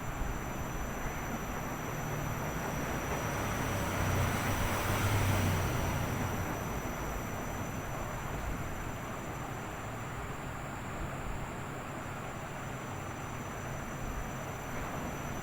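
Washing machine running: a steady noise with a low hum, swelling louder about four to six seconds in and then settling back.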